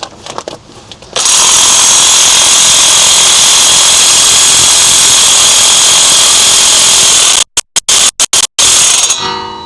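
Impact wrench hammering continuously on a tightly seized nut for about six seconds, then cut on and off several times in quick bursts before spinning down; the nut is not coming loose.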